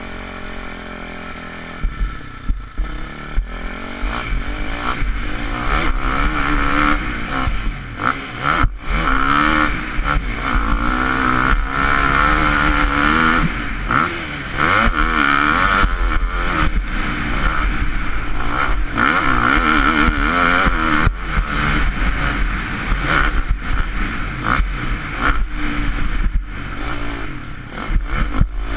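KTM 250 SX-F motocross bike's single-cylinder four-stroke engine revving hard under riding, its pitch repeatedly rising and falling through the throttle and gears, with several brief drops as the throttle is shut. Heard close up from a camera mounted on the bike.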